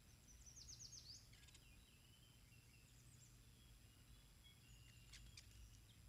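Faint bird calls over quiet outdoor background: a quick run of about six high chirps about half a second in, then a few scattered short calls later, with a low steady hum underneath.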